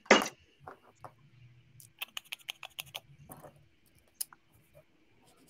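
A brief burst of noise at the very start, then light, sharp clicks and taps, with a quick run of about a second near the middle and scattered single clicks around it.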